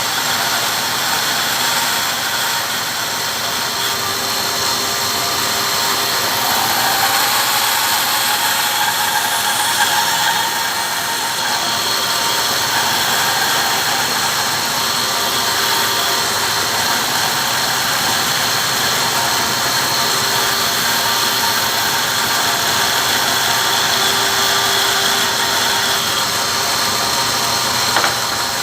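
Electric power saw running steadily while cutting wood, with a high whine over its noise and a sharp click near the end.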